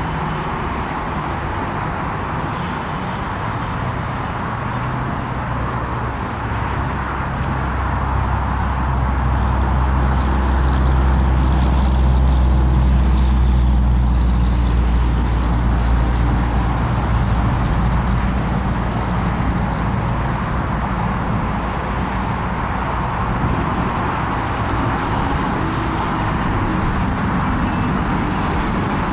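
Jet airliner engines, heard as a steady low rumble that swells to a peak about halfway through and then slowly eases off, like an aircraft passing.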